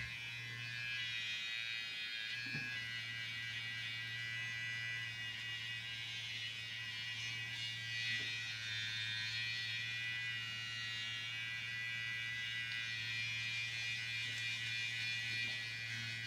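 PMD Clean Pro RQ electric facial cleansing brush vibrating against the face: a steady low motor hum with a thin high-pitched whine over it.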